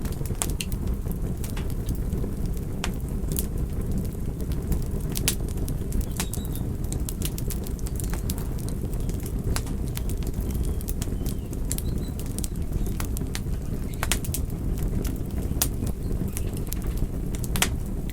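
Wood fire crackling in a fireplace: irregular sharp pops and snaps over a steady low rush of burning flames.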